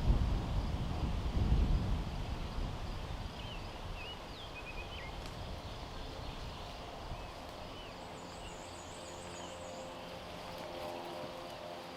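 Outdoor field ambience: wind buffets the microphone for the first couple of seconds, then small birds chirp, and a high wavering trill runs for about two seconds later on.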